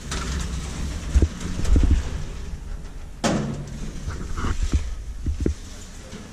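Traction elevator cab running with a low rumble and a few knocks, then a sharp clunk a little over three seconds in as it stops, followed by lighter thumps as the side-opening doors slide open.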